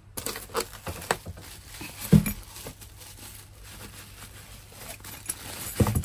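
Bubble wrap crinkling and rustling as hands dig through a cardboard box of wrapped padlocks, with many small clicks and two dull knocks, about two seconds in and near the end.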